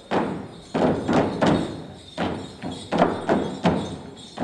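Folk dancers stamping their feet in an uneven rhythm, about a dozen heavy stamps, with no music playing.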